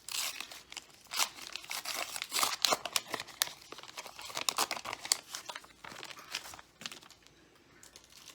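Crinkling and tearing of a McDonald's Pokémon card pack wrapper being torn open and handled, a dense irregular crackle that dies down about two-thirds of the way through.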